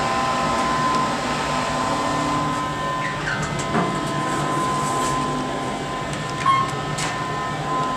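Steady hum of a hydraulic elevator's pump motor running, from the machine room and mixed over the cab ride, together with the cab's ventilation fan. A couple of sharp clicks near the end.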